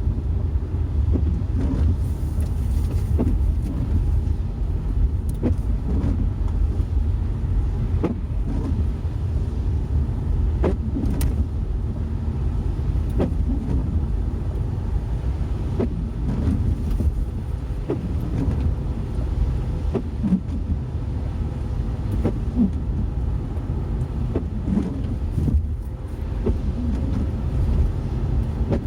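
Road noise inside a moving car: a steady low rumble of engine and tyres, with scattered small knocks and rattles.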